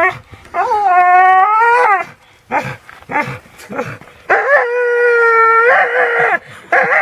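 A dog whining and howling in long, drawn-out cries with a stick clenched in its jaws while it hangs from it by its teeth. There are two long cries, the second one longer, with short cries between them and another cry starting at the very end.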